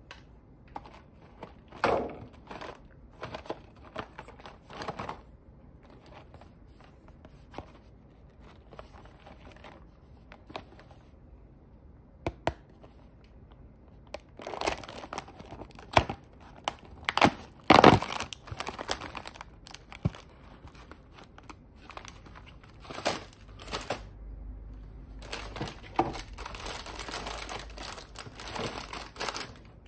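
Plastic-wrapped cookies and their cardboard box being handled and unpacked into a clear plastic tray: scattered rustles and taps, a few louder sharp sounds around the middle, then steady crinkling of the plastic wrappers near the end.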